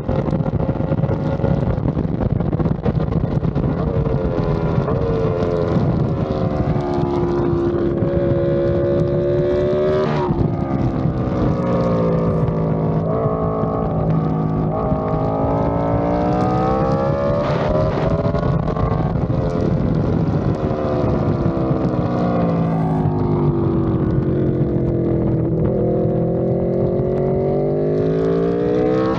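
Sport motorcycle engine heard onboard at track speed, under a heavy rush of wind. The engine note falls as the bike brakes hard from high speed, jumps at downshifts, and rises again as the bike accelerates out of the corners, several times over.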